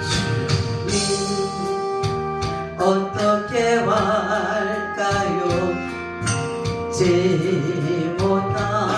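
A woman singing a slow gospel praise song into a handheld microphone over instrumental accompaniment with a drum beat. She holds long notes with vibrato, about four seconds in and again near the end.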